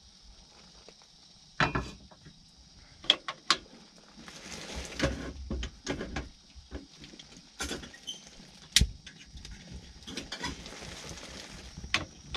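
Frying pan and cooking gear being handled and set on a portable stove: a series of separate clinks and knocks with soft rustling between them.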